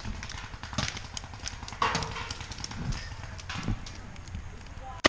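Footsteps on grass with clothing and gear rustling as a player moves between cover, irregular soft thuds over a constant low rumble.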